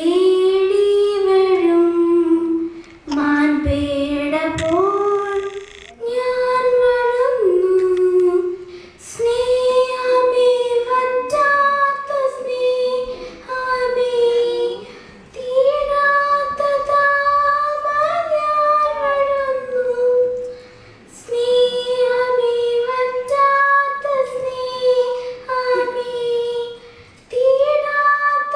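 Young girl singing solo into a microphone: a single voice with no accompaniment, in long held phrases broken by short pauses for breath every few seconds.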